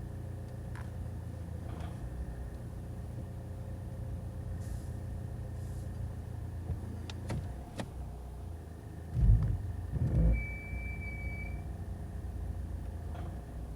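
Mercedes W211 E 220 CDI's four-cylinder diesel engine idling steadily, with a few sharp clicks and two dull low thumps about nine and ten seconds in, followed by a short high-pitched beep.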